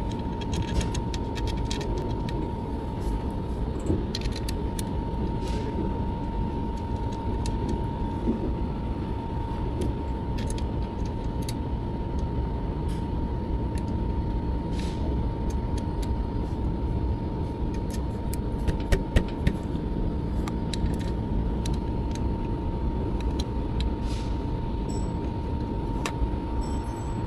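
Steady machinery drone with a constant high whine, and light metallic clinks scattered through it as bolts are fitted by hand into a generator's PMG housing.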